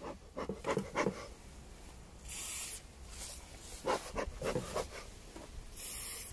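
Aerosol can of thymol-based acaricide giving two short hissing sprays about three and a half seconds apart. Between and before them there is rustling and light clicking from handling.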